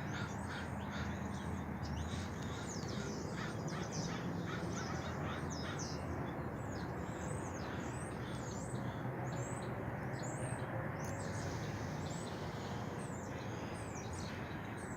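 Birds calling: many short, quick calls, several a second, over a steady low background rumble.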